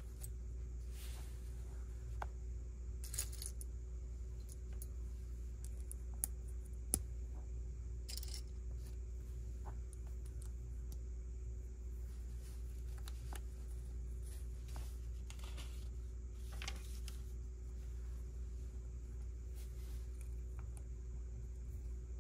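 Small plastic Lego pieces clicking and clinking as they are handled and pressed together, a few sharp clicks among softer rustling, over a steady low hum.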